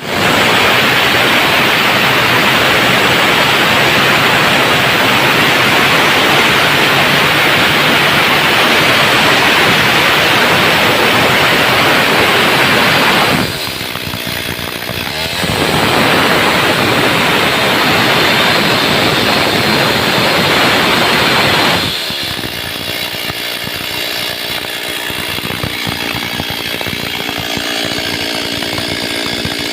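Chainsaw running at high speed, most likely cutting wood. Its loud, dense whine eases off for about two seconds around halfway through, then returns. Near the end it drops to a quieter, steadier running.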